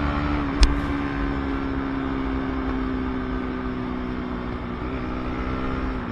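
Motorcycle engine running at a steady cruising speed after easing off, its note holding almost level. A short thump sounds about half a second in.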